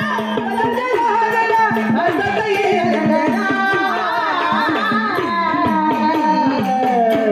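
A singer performing a devotional song in a gliding, ornamented melody, with tabla strokes and a steady drone underneath. The melody settles on a long held note near the end.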